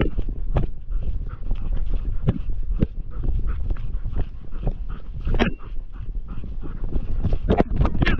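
Hunting dog barking in scattered, irregularly spaced barks, with whimpering, over a steady low rumble.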